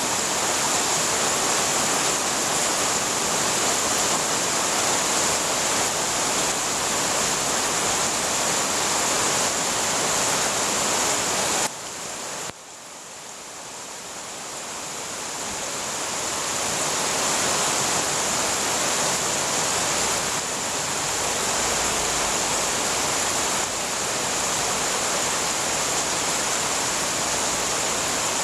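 Heavy rain pouring steadily onto garden plants and leaves: an even hiss. About twelve seconds in it drops away suddenly, then swells back up over the next few seconds.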